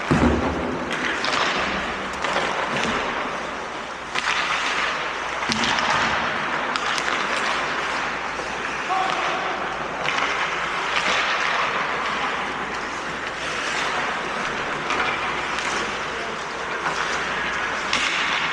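Ice hockey play: skates scraping the ice, with sharp clacks of sticks and puck now and then over a steady rink noise and indistinct voices.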